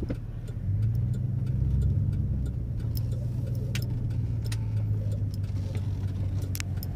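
Road and engine noise inside a moving truck's cabin at highway speed: a steady low hum that grows louder about a second in. Faint scattered clicks run through it.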